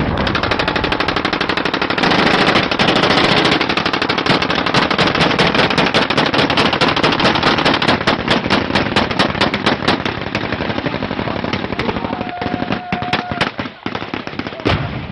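Sustained automatic gunfire: long, rapid bursts of many shots a second, thinning out to scattered shots near the end.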